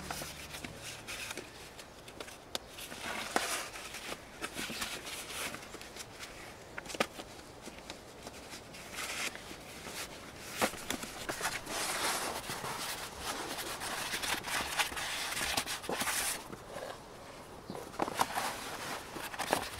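Close-up rustling and scuffling as gear is handled and pulled out of a log shelter, a rolled foam sleeping mat among it. Scattered sharp knocks and clicks, with a few shuffling steps on the forest floor.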